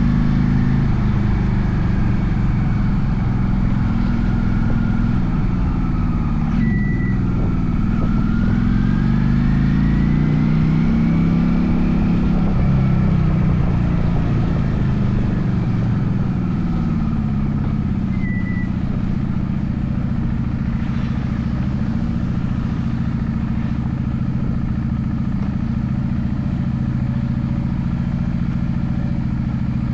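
Honda Shadow VLX 400 V-twin motorcycle engine running on the move: its note drops about six seconds in, climbs again as it speeds up, then holds steady from about halfway on. Two short high beeps sound, about seven and eighteen seconds in.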